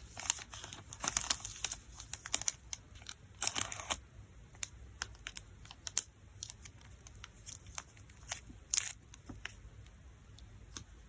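Plastic packaging crinkling and rustling as photocards are packed, in several bursts over the first four seconds and once more near the end, with scattered light taps and clicks between.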